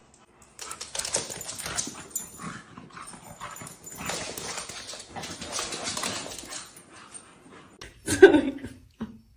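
A dog, with several seconds of noisy rustling and scuffling, then one short, loud cry falling in pitch about eight seconds in.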